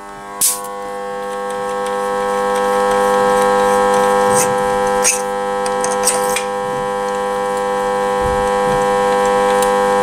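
A steady hum of several held tones, growing louder over the first three seconds, with a few sharp clicks in the middle.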